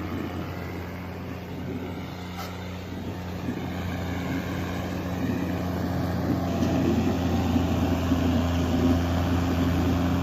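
Tractor diesel engine running steadily, growing gradually louder from about four seconds in.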